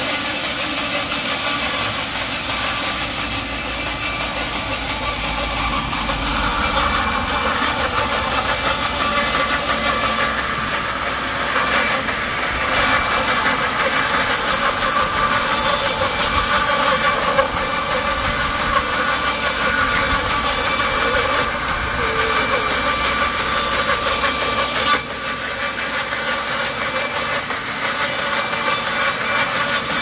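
Vintage 1938 vertical band sawmill running, its blade ripping lengthwise through a log as the carriage feeds it: a steady, loud hiss with machine noise, dipping briefly near the end.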